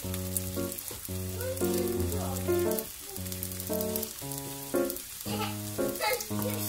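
Rolled dumpling wrappers frying in oil in a nonstick pan, a steady sizzle with fine crackling, under background music playing held notes.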